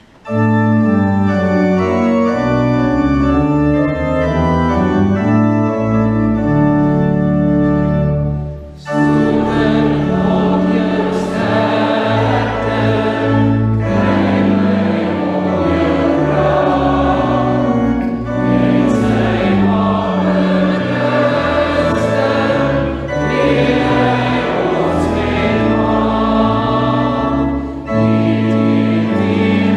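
Church organ playing a hymn's introduction in sustained chords, then about nine seconds in a congregation joins in singing the hymn with the organ.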